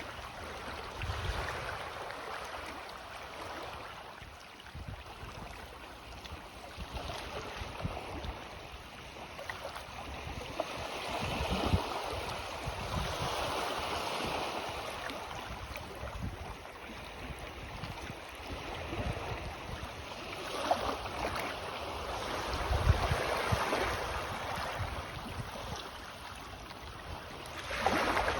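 Small sea waves lapping and washing onto the shore on a rising tide, swelling and easing every few seconds, with some low wind rumble on the microphone.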